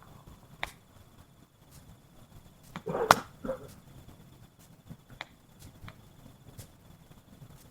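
Wood fire crackling: irregular sharp pops and snaps, with a louder crack and a short rustling knock about three seconds in.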